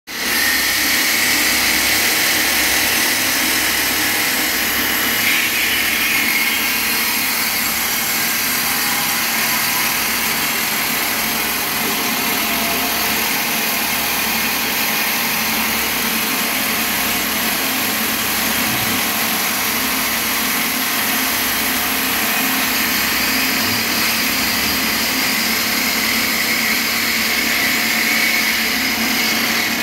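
Water-cooled marble cutting saw running steadily, its blade cutting through a marble slab being fed along the machine bed, a continuous loud hiss of blade on stone and splashing coolant.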